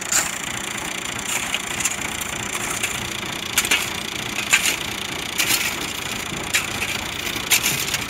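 A metal shovel scraping and digging into sand and gravel: about a dozen short, sharp scrapes at uneven intervals, digging out a tractor's rear wheel that is bogged in sand.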